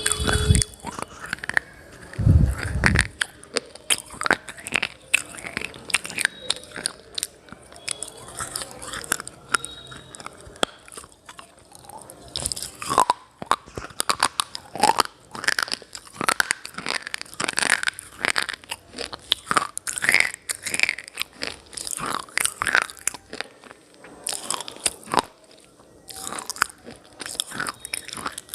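A person biting and chewing hard, brittle clay-like pieces close to the microphone: irregular sharp, crisp crunches, thicker in the second half. Two dull low thumps come in the first three seconds.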